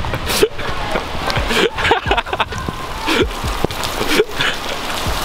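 A man laughing and breathing hard as he runs through rain, with rushing rain and wind noise on the camera microphone and irregular knocks from the handheld camera.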